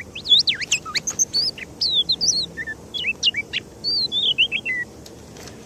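Oriental magpie-robin singing: a rapid run of varied, sweeping whistled notes that stops about five seconds in.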